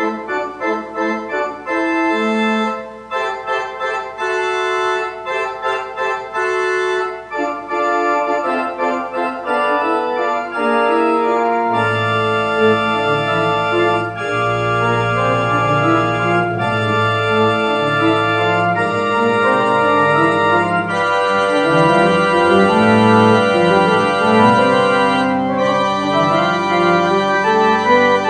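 Church organ playing, with short separated chords at first. About twelve seconds in, a low bass line enters and the music grows fuller and a little louder.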